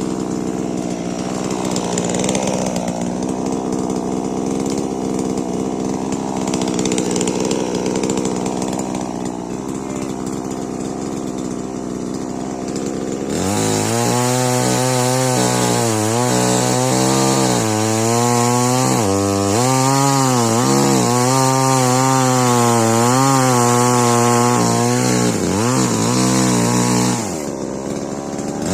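Stihl MS 881 chainsaw, a large two-stroke saw, running and cutting wood. About halfway through it becomes much louder and clearer, its engine pitch wavering and dipping as it works under load, before easing off near the end.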